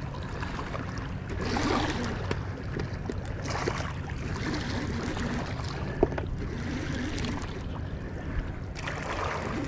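Wind and river water along the rocky bank: a steady low rumble that swells now and then, with one sharp click about six seconds in.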